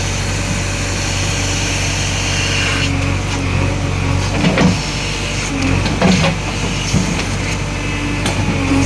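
JCB 3DX backhoe loader's diesel engine running steadily under work, with several short metallic clanks from the machine about halfway through and near the end.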